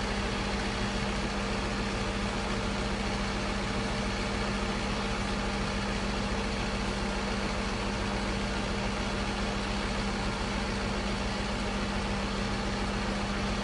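A heavy vehicle's engine running steadily at constant speed, with an unchanging hum.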